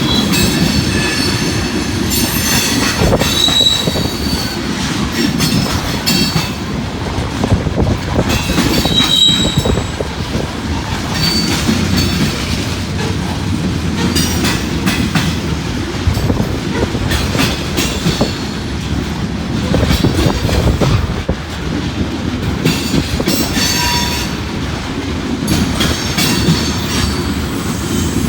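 Long unit train of loaded covered hopper grain cars rolling past, a steady heavy rumble with wheels clacking over rail joints. Short high-pitched wheel squeals come and go.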